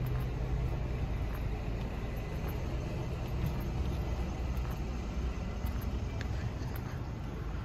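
City street traffic: car engines running and passing close by, heard as a steady low rumble.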